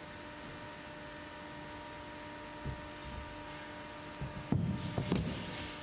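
A steady electrical hum of room tone. A soft knock comes about two and a half seconds in, and near the end a brief clatter of knocks with a high, ringing, metallic tone.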